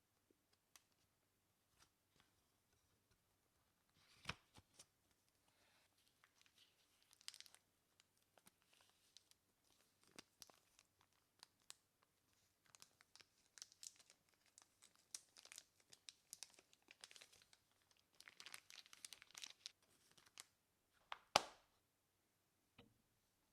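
Quiet unboxing sounds: packaging being handled and opened, with crinkling and tearing of wrapping and scattered clicks and taps, and one sharper knock near the end.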